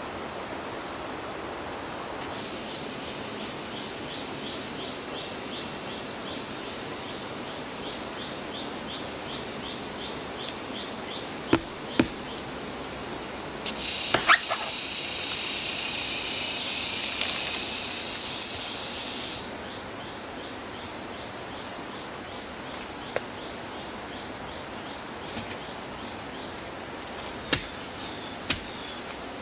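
Machete blade striking a rotting palm stump: a few sharp, separate chops spread out, two close together near the middle and two more near the end, over a steady noisy forest background. A loud high hiss runs for about six seconds in the middle.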